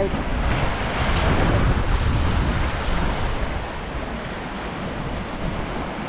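Sea surf washing onto the beach, with wind rumbling on the microphone.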